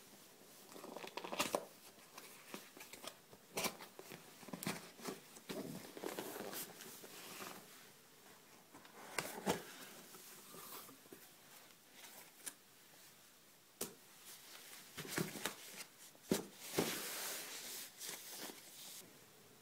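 Cardboard packaging being opened by hand: a tape seal torn off, then cardboard scraping and knocking and plastic wrapping rustling, as irregular sharp clicks and rustles with a longer rustle near the end.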